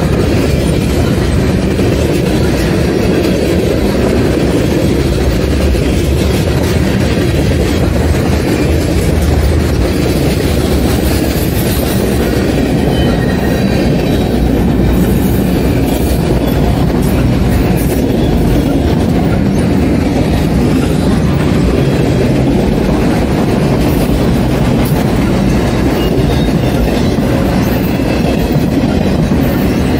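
A mixed freight train's tank cars, hoppers and autoracks rolling past at close range: a steady, loud rumble and clatter of steel wheels on the rails.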